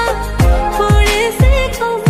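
Background Bollywood song in an instrumental stretch without lyrics: a deep kick drum about twice a second under a sustained, wavering melody.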